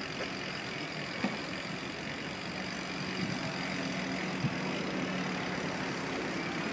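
Slow city traffic close by: the engines of a small bus and cars running at low speed, a steady hum, with a couple of sharp clicks.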